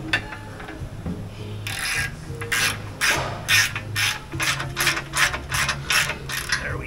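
Hand ratchet wrench clicking in a run of short rasping strokes, a couple to three a second, from about two seconds in, as bolts are run into an aluminium skid plate under a vehicle.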